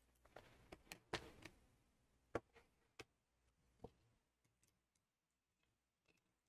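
Faint handling sounds of small tools and phone parts on a repair bench: a brief rustle with clicks in the first second and a half, then a few isolated sharp clicks.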